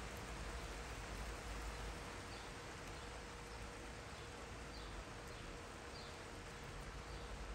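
Steady rain falling on a garden, a soft even hiss, with a faint short high chirp every second or so.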